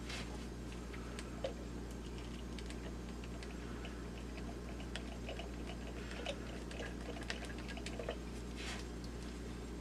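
Scattered light clicks and taps as the small plastic parts of a Lemax Eerie Go Round are handled and fitted back together, over a steady low hum.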